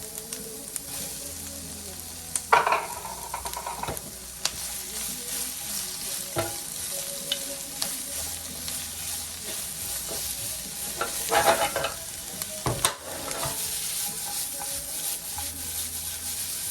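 Chopped peppers and onion sizzling in a little hot oil in a frying pan, a steady hiss, with a utensil stirring and scraping against the pan now and then, loudest about two and a half seconds in and again around eleven to twelve seconds.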